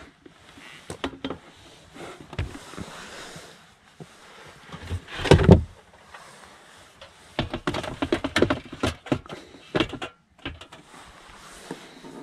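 Handling of a metal portable gas stove inside a car: knocks, scrapes and clattering as it is lifted and set down. The loudest is a bump with a scrape about five seconds in, and a run of quick clattering knocks follows in the second half.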